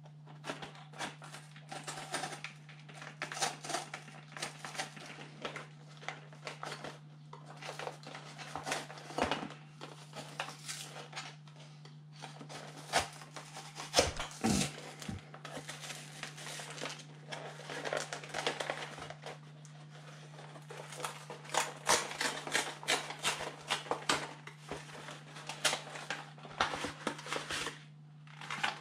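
Cardboard Pokémon card box being opened and its plastic packaging handled: a long irregular run of scrapes, clicks and crinkling rustles.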